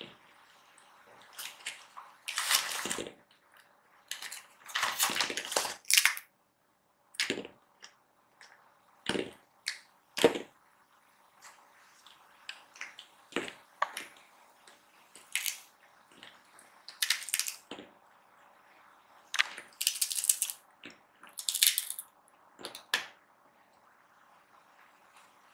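Bengal cats crunching and chewing hard dried cod: an irregular run of sharp crunches, a few much louder than the rest, with short pauses between.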